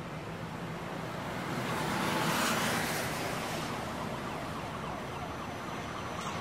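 Night street traffic: a steady hiss of road noise that swells as a car passes by, loudest about two and a half seconds in, then eases back.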